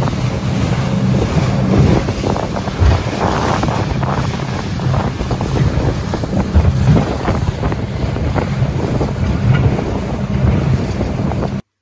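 Wind buffeting the microphone over the rush of water past the hull of a small fishing boat under way on open sea; a loud, gusty, steady noise that cuts off suddenly near the end.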